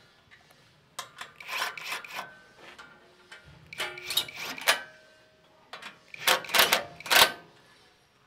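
Cat cordless impact wrench (rattle gun) with a 12 mm socket on an extension, fired in three short bursts about a second long each, running up the mounting bolts of a steel underbody bash plate.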